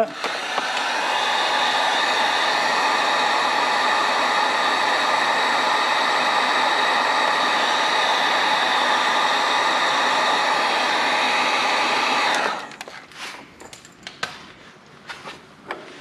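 Wagner electric heat gun running steadily, blowing hot air to shrink heat-shrink tubing over a wire joint, switched off about three-quarters of the way through. A few small handling clicks and knocks follow.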